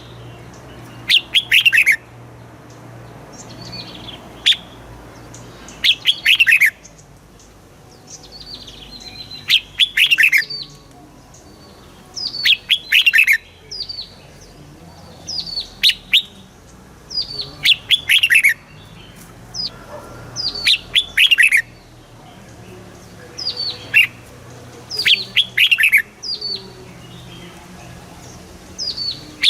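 Red-whiskered bulbul singing, short bright phrases repeated every second or two, each a quick run of notes falling in pitch.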